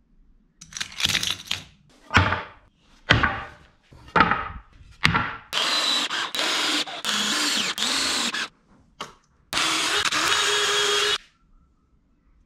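About five short, sharp strokes roughly a second apart, then a cordless drill driving screws into pine timber in several short runs and one longer run near the end.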